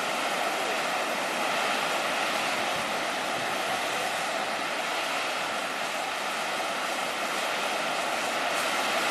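The Bocca Grande fumarole of the Solfatara crater venting sulphurous gas and steam: a steady, unbroken hiss of gas rushing from the vent.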